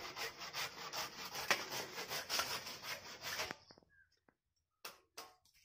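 Hand saw cutting through a green tree branch with rasping back-and-forth strokes, about three a second. The sawing stops about three and a half seconds in, followed by a few faint knocks.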